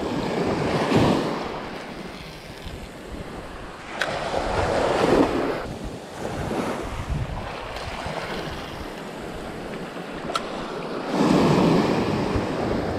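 Small surf waves breaking and washing up the sand at the shoreline in three surges several seconds apart, with wind blowing on the microphone. Two brief sharp clicks, about four and ten seconds in.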